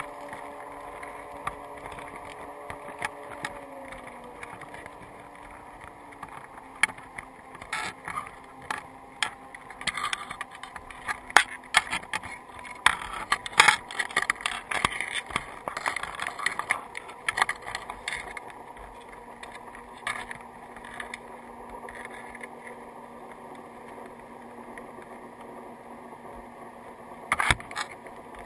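Crabs clambering over a crab trap and the underwater camera housing: a scatter of sharp clicks and scrapes from shells and claws, busiest in the middle and loudest about fourteen seconds in. Underneath runs a steady low motor hum carried through the water, which dips slightly in pitch about four seconds in.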